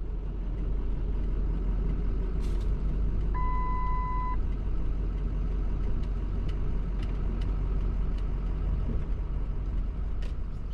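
Road and engine noise heard inside a moving pickup truck's cab, a steady low rumble. About three seconds in comes a single electronic beep lasting about a second, and a few faint clicks are scattered through.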